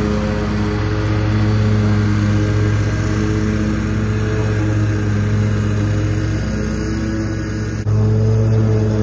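Ferris ISX 800 zero-turn mower's EFI Kawasaki engine running at a steady pitch under mowing load. The sound dips briefly and cuts back in abruptly a little before the end.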